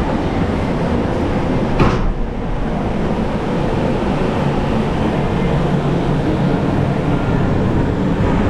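Steady low rumble of a moving vehicle, with one sharp click about two seconds in.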